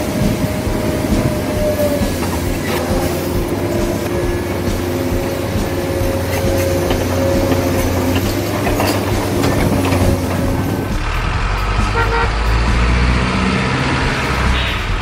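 Truck sound with several long, held horn notes sounding together over a steady low engine rumble; the horn stops about eleven seconds in and the rumble carries on heavier.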